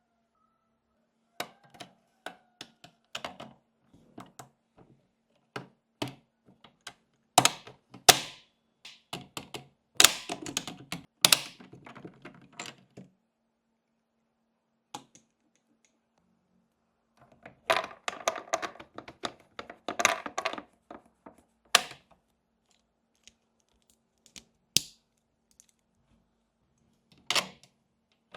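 Irregular clicks, taps and clacks of small hard miniature toy pieces being handled and set down, coming in busy bursts with quiet pauses between.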